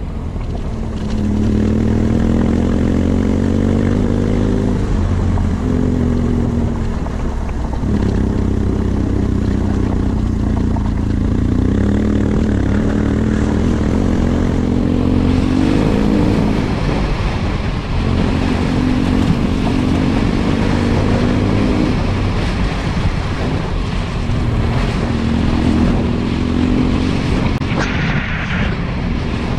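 BMW F800GS parallel-twin engine running as the motorcycle rides a gravel road. It fades up over the first second or so. Its pitch rises and falls with throttle and gear changes over a steady rush of wind and tyre noise.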